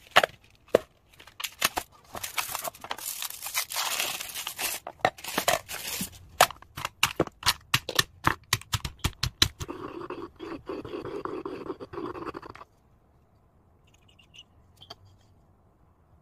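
Lindt 70% dark chocolate bar being unwrapped and snapped into pieces that drop into a stone bowl: crinkling wrapper and a quick run of sharp snaps and clicks. About ten seconds in comes a couple of seconds of steady rushing noise, then only faint small sounds.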